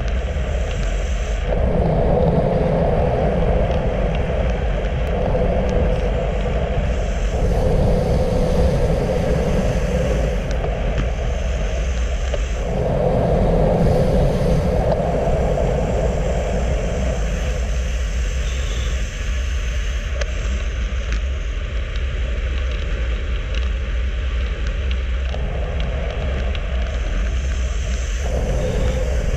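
Steady wind rush and road rumble on the microphone of a handlebar-mounted camera on a road bike moving at about 40 km/h.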